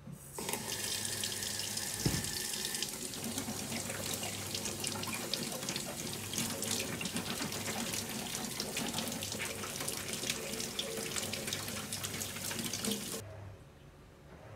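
Kitchen mixer tap running into a stainless steel sink, the water splashing over hands as a bell pepper is rinsed under it. The tap comes on about half a second in and is shut off near the end, with a single knock about two seconds in.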